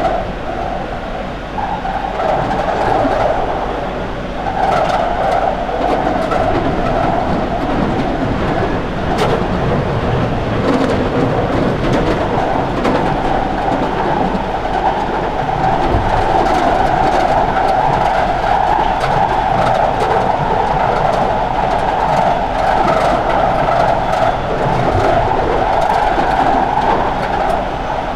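London Underground 2009 Stock train running at speed through the tunnel, heard from on board: a steady rumble and roar of wheels on rail and the traction motors, with occasional clicks. It gets louder about four seconds in.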